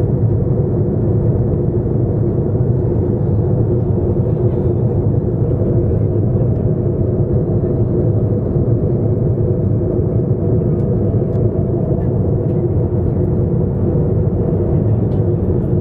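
Steady cabin noise of a jet airliner in cruise: a low, even rush of engine and airflow noise with a few steady hums underneath.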